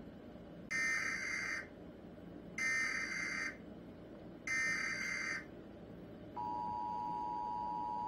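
Emergency Alert System SAME header: three short bursts of buzzing data tone, each about a second long and about two seconds apart. About six seconds in, the steady two-tone EAS attention signal begins.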